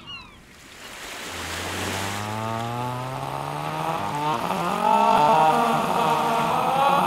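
Low drawn-out chanting: one deep tone enters about a second in and slowly rises in pitch, then swells into a fuller, louder chord about halfway through, over the hiss of surf.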